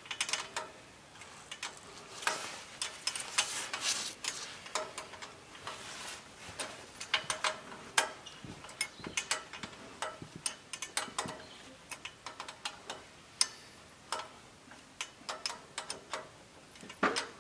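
A hand wrench clicking and scraping on the carburetor's top mounting bolts as they are backed off a little at a time, the manifold blocking a full turn. It makes irregular metal clicks and ticks, some in quick clusters.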